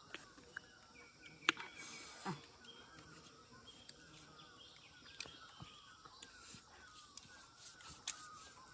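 Birds chirping faintly and repeatedly in the background, with a few sharp clicks.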